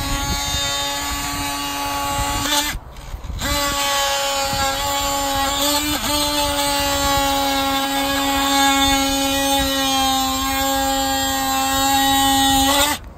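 Cordless oscillating multi-tool cutting down the foam roofing around a roof drain scupper to give it a better grade for drainage. It runs as a steady whine, stops briefly about three seconds in, then restarts with slight dips in pitch as the blade bites, and cuts off near the end.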